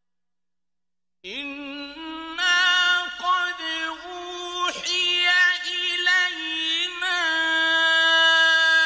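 A man's solo voice reciting the Quran in the melodic mujawwad style, holding long, ornamented notes that bend and glide in pitch. It begins about a second in, after silence.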